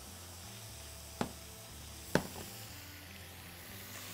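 Two sharp knocks of kitchen cookware, about a second apart, the second louder with a brief ring, over a faint steady background.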